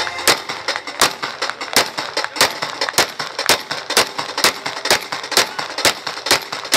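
AK-pattern rifle fired in rapid single shots, a steady string of sharp cracks about three a second.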